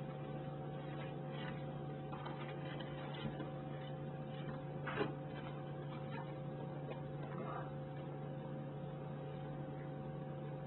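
Steady electrical hum made of a low drone and a few fixed higher tones, with faint scattered ticks and one sharper tap about five seconds in.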